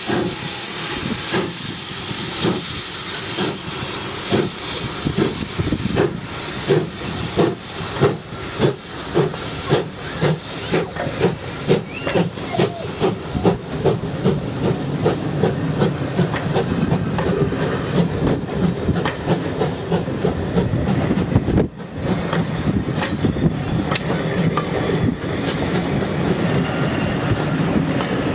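Steam tank locomotive pulling away with a train: a hiss of escaping steam, then exhaust chuffs starting about four seconds in and quickening, followed by the steady rumble and clicking of the carriages rolling past.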